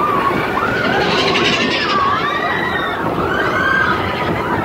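Mine-train roller coaster running along its track, heard from on board: a steady loud rumble and rattle, with high squeals rising and falling over it.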